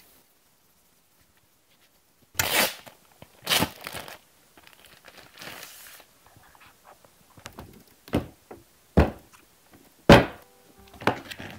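Close-up handling noises of a cleaning cloth and a new iPad case with a trifold cover: rustling and crinkling scuffs that start about two seconds in, with a few sharp taps or clicks near the end.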